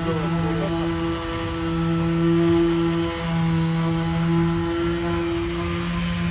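Handheld power polisher running on a truck's polished metal fuel tank, a steady motor whine that dips briefly a couple of times as the pad is worked against the tank.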